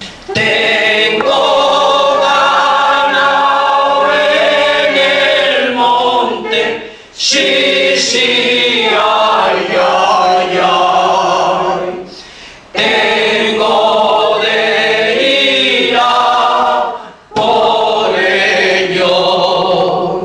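Mixed choir of men's and women's voices singing a Cantabrian tonada montañesa a cappella, in long held phrases with three short breaks between them.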